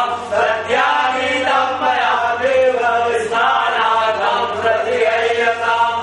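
Male voices chanting Hindu mantras in a steady recitation with long held notes.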